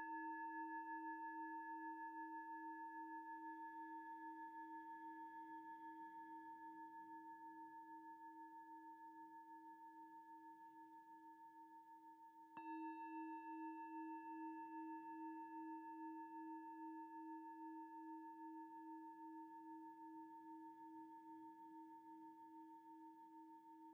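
A singing bowl ringing with a slow, regular wobble in its tone and slowly fading away; it is struck again about halfway through and rings out anew.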